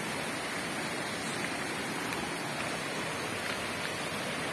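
Steady rushing of flowing hot-spring water.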